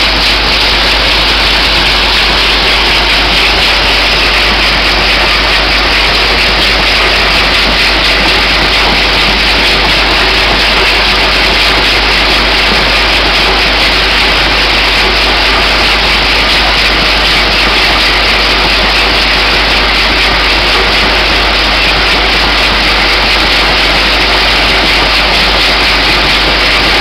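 Vibratory bowl feeder running at production speed: a loud, steady, dense rattle of plastic bottle caps being shaken up the spiral track of the stainless-steel bowl, over a steady low hum.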